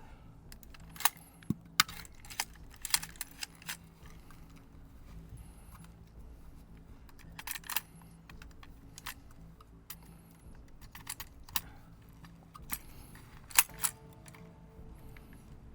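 Sharp clicks and knocks at irregular intervals, some in quick pairs, with the loudest near the end, over a faint steady hum.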